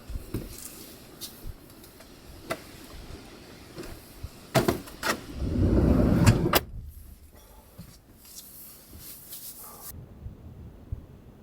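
A camper van's sliding door rolling shut and latching with a sharp click. After it the outside noise is abruptly muffled.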